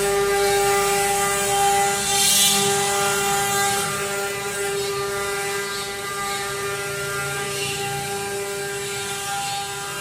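CNC stone-carving machine cutting stone: a steady spindle whine over a fast, fine chatter of the bit against the stone, with a short louder hiss about two seconds in.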